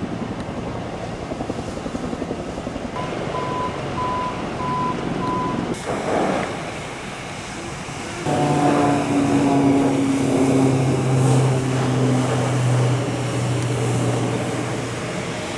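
Steady drone of firefighting aircraft engines, with a short series of beeps partway through. In the second half a steady engine hum runs under the hiss of a hose spraying water onto burnt brush.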